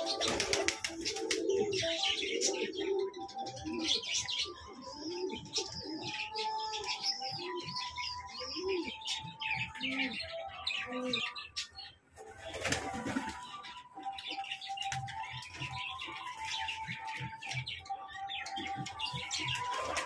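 Domestic pigeons cooing, mostly in the first few seconds, with small birds chirping high above them throughout and a flurry of wing flapping about two-thirds of the way through.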